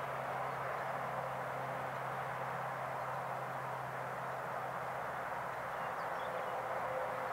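Steady outdoor background noise, an even hiss with a low steady hum underneath; no sound from the foxes stands out.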